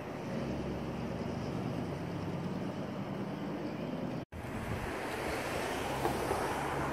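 Outdoor street ambience: a steady wash of wind on the microphone with a low hum of passing traffic, broken by a brief drop-out a little over four seconds in.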